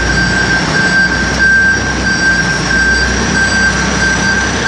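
Backhoe loader running at close range: its diesel engine makes a steady low rumble. Over it a high alarm tone, the machine's travel or reversing warning, sounds continuously and swells and fades in loudness.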